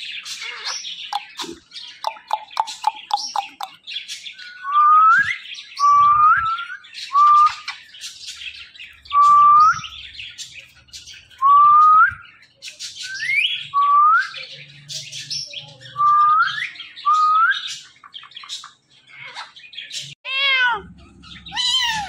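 Ringneck parrots chirping and squawking, with a series of about ten short whistled calls that each slide sharply upward. Near the end come drawn-out, meow-like calls.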